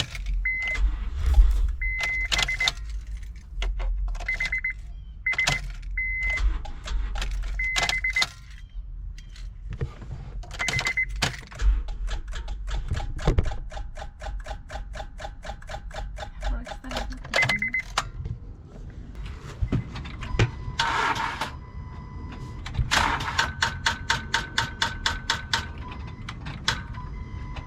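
Keys jangling and repeated warning-chime beeps, then two runs of rapid clicking as the key is turned and the 2012 Honda Pilot fails to crank. The clicking is the starter chattering on a battery too low, about 10.3 volts, to turn the engine over.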